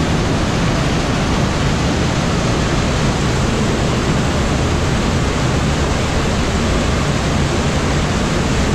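Waterfall pouring into a churning pool: a loud, steady rush of water.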